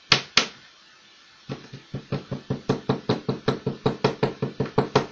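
Two sharp clicks, then from about a second and a half in a quick, even run of about twenty knocks, some six a second, as a small rolled paper tube is tapped on a wooden tabletop.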